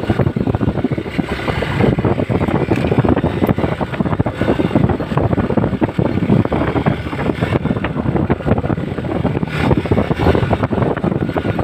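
Hero XPulse 200 single-cylinder motorcycle being ridden off-road, its engine running under heavy wind buffeting on the microphone, with frequent knocks and rattles from the rough trail.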